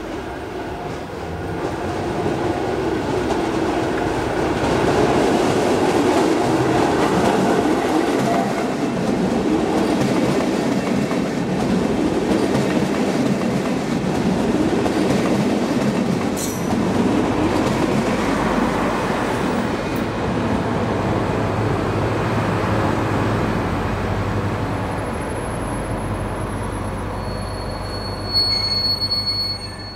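A push-pull passenger train passing close, a Wittenberger control car in front and the class 218 diesel-hydraulic locomotive 218 326-7 pushing at the rear: wheel and rail rumble builds and holds loud, with a lower diesel drone as the locomotive goes by. A high wheel squeal comes near the end.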